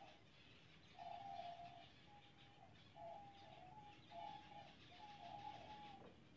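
A zebra finch colony chirping faintly, overlaid by a repeated low cooing call: level, stepped notes of half a second to a second each, coming about once a second.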